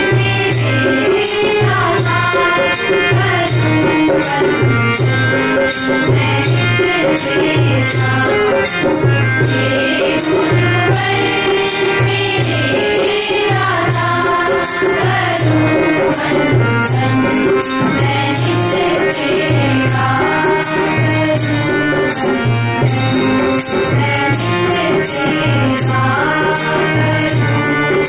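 A devotional prayer song: singing over a steady, evenly repeating percussion beat.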